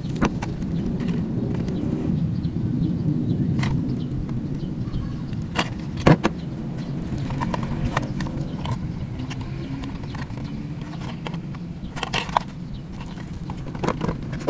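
Handling clicks and knocks from a WPL D12 RC truck's plastic body and chassis and its cardboard box as they are turned over and set down, a dozen or so scattered taps with the sharpest about six seconds in and a cluster around twelve seconds. A steady low rumble runs underneath throughout.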